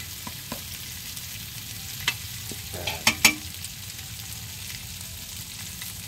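Tomatoes, lemongrass, chili, ginger and batuan sautéing in oil in a metal wok: a steady sizzle, with a spatula knocking and scraping against the pan a few times.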